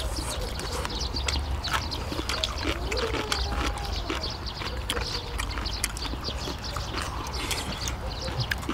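Eating noises at a table: frequent small clicks and smacks of chewing and of utensils on dishes, with a steady low rumble underneath.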